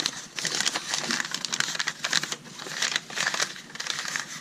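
Paper instruction leaflet rustling and crinkling as it is handled, a run of quick, irregular crackles.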